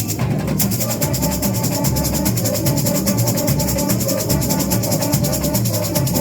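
Samba school bateria playing a samba: deep bass drums pulsing under a dense, fast rattle of shakers and snares. The high rattle comes in at full strength about half a second in.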